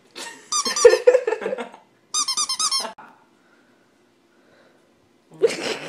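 Rapid high-pitched squeaks, about six a second, in two bursts over the first three seconds, then a short noisy burst near the end.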